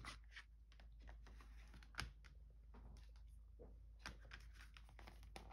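Near silence with faint scattered clicks and light taps from a leather traveler's notebook being handled, with a sharper click about two seconds in.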